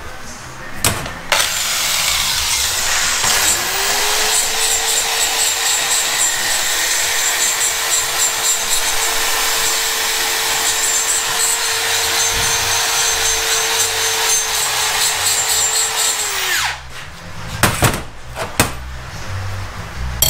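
High-speed rotary grinder, of the die-grinder kind used for porting a cylinder head, grinding steadily. Its grinding noise starts about a second in, and its whine comes up to a steady high pitch a couple of seconds later. It cuts off near the end and is followed by a few sharp knocks.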